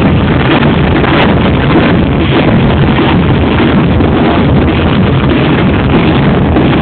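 Football supporters' crowd noise, loud and steady, from a packed crowd close to the microphone.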